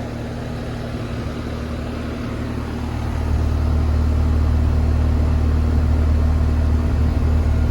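Outdoor condensing unit of a 3.5-ton Carrier Sentry central air conditioner running: a Copeland scroll compressor and condenser fan give a steady low hum with fan noise, growing louder and deeper about three seconds in.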